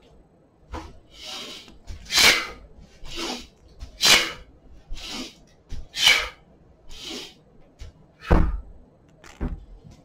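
Sharp, hissing breaths in time with kettlebell swings, about one a second, alternating stronger and weaker. Near the end there is a low thud as the kettlebell is set down on the wooden floor.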